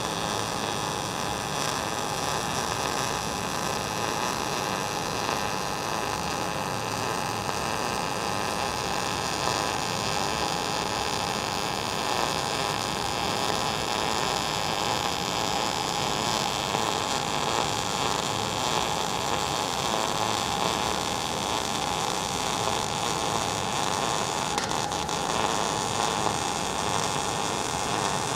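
MIG welding arc burning steadily with a continuous sizzling hiss as the wire feeds into the seam.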